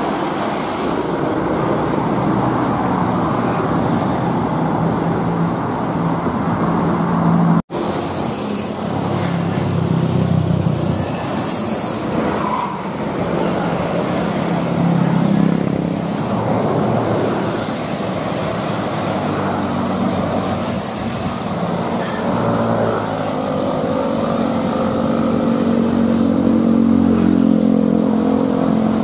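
Road traffic: heavy diesel vehicles such as buses and trucks, along with motorcycles, running and passing close by. The sound breaks off abruptly about eight seconds in, then picks up again. Near the end, a pitched engine tone climbs as a vehicle accelerates.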